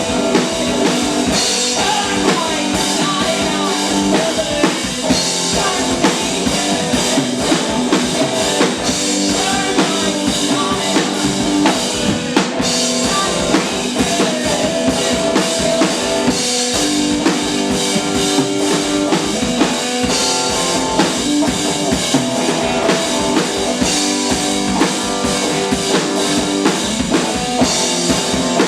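Live indie folk-rock band playing: drum kit keeping a steady beat under guitar.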